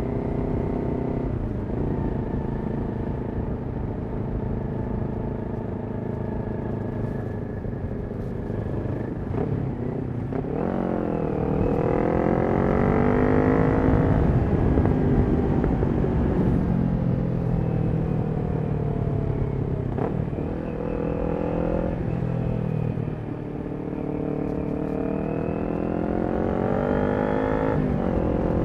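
Kawasaki Ninja 400's parallel-twin engine through a Yoshimura exhaust, heard from on the bike. It cruises steadily, then the revs climb from about ten seconds in, fall away through the middle, and rise again near the end through a gear change.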